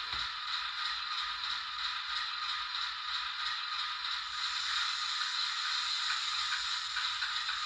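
Hornby Class 08 diesel shunter OO gauge model running, its DCC sound decoder playing the diesel engine sound through a small onboard speaker: steady and thin, with no bass. A brief low bump comes right at the start.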